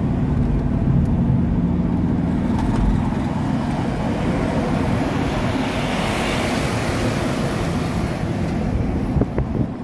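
Steady road and wind rumble from a car driving on an expressway, heard from inside the cabin as the car draws alongside a tanker semi-trailer truck. The noise swells a little around the middle, and a few short knocks come near the end.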